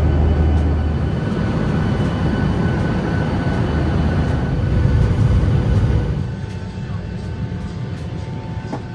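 Airliner cabin noise in flight: a steady, loud rumble of engines and airflow, which drops abruptly about six seconds in.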